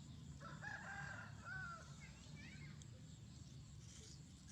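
A rooster crowing faintly once, a call of over a second starting about half a second in, followed by a few short gliding chirps. A steady low hum runs underneath.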